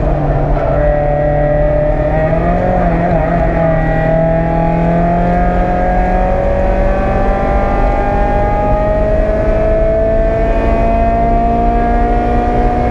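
Mazda Miata NA8 race car's 1.8-litre four-cylinder engine heard from inside the stripped cockpit, under load: its pitch wavers about two to three seconds in, then climbs slowly and steadily as the car accelerates through one long gear, with road and wind noise underneath.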